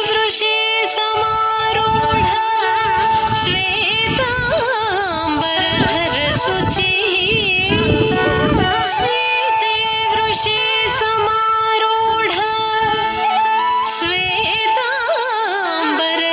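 Indian classical dance song: a high voice singing with wavering, gliding ornaments over a steady held drone, with occasional sharp percussion strikes.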